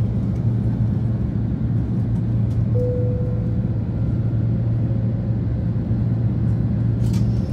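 Jet airliner cabin noise during the climb just after take-off: a steady engine rumble with a deep hum. A short faint tone comes about three seconds in, and a brief crackle near the end.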